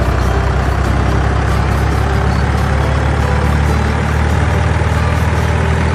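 A heavy truck engine sound effect, running steadily and low-pitched.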